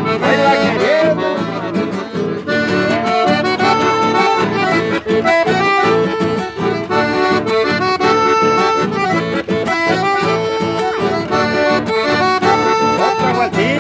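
Accordion-led traditional folk music playing with a steady, lively beat.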